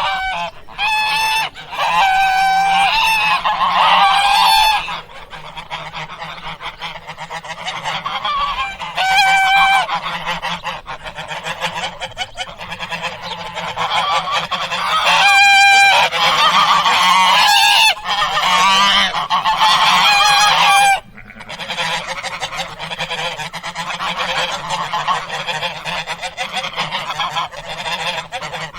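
A flock of domestic waterfowl calling: many loud, overlapping honking calls, with a brief lull about 21 seconds in.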